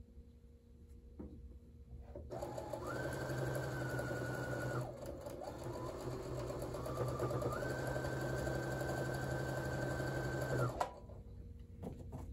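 Brother electric sewing machine stitching a seam, starting about two seconds in. Its motor whine steps up in pitch as it speeds up, dips briefly around the middle, runs again and stops a little before the end, followed by a few light clicks.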